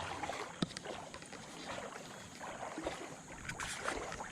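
Creek water sloshing and splashing, with a few light knocks.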